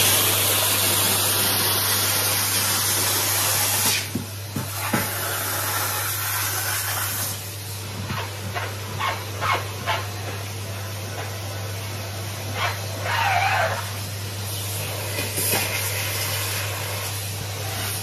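Numatic Henry cylinder vacuum cleaner running, its bare metal wand sucking along carpeted stair edges. The suction hiss is loudest for the first four seconds, then drops and varies as the wand end meets the carpet, with a few short knocks.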